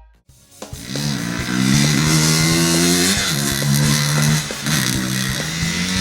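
Vehicle engine sound effect revving up about a second in, then running at a steady pitch, with short dips in pitch about three and four and a half seconds in.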